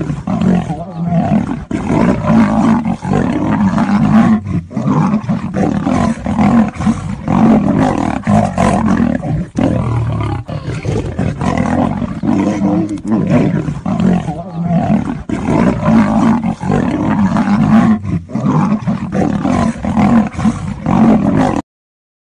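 A lion and a tiger roaring at each other as they fight, loud and continuous, cutting off suddenly near the end.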